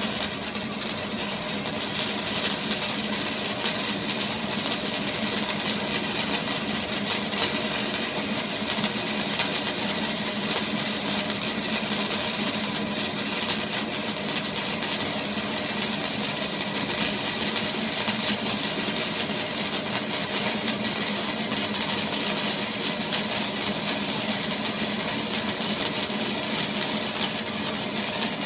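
Steady mechanical running noise with a constant low hum and a fine, even crackle, unchanging throughout.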